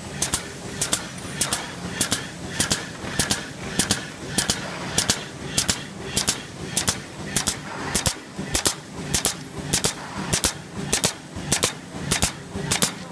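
A three-side-seal plastic pouch-making machine running at production speed, with a steady hum. Each machine cycle gives a pair of sharp clacks, and the pairs repeat evenly, about one every 0.6 seconds.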